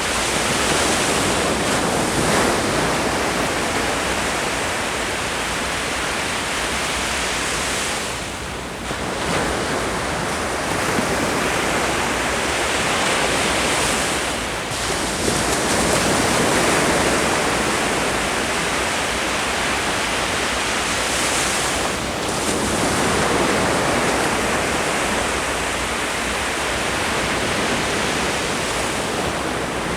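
Ocean waves washing onto the shore in a continuous surf, swelling and easing every six to eight seconds.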